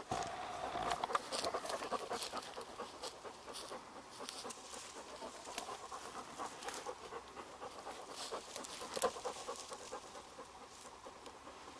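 German shorthaired pointer panting as it moves through dry grass and brush, with the stems crackling and rustling in scattered sharp snaps throughout.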